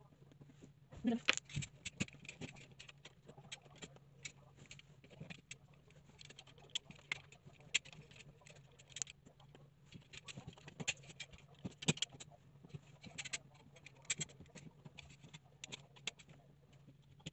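A small blade scraping and picking at the metal threads of a wall water outlet to clear off old thread seal: irregular little clicks and scratches, with a sharper click about a second in and another about twelve seconds in. A low steady hum runs underneath.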